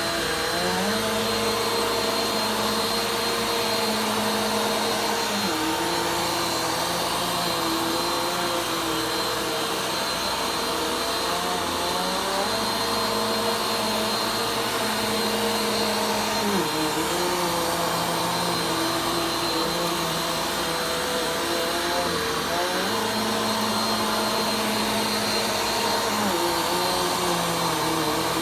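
Vacuum cleaner running continuously during slow vacuuming. Its steady motor whine carries a lower tone that shifts up and down every five to six seconds, with a short pitch glide at each change as the machine is pushed and pulled in slow strokes.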